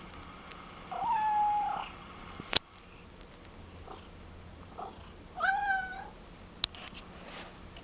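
Domestic cat meowing twice: two drawn-out, fairly steady calls a few seconds apart. Two brief sharp clicks fall between and after the calls.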